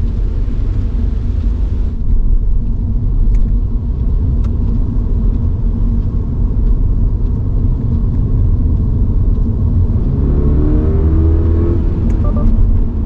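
Toyota GR86's 2.4-litre flat-four engine with tyre and road noise, heard from inside the car while driving on a wet road. The engine note rises about ten seconds in as the car accelerates.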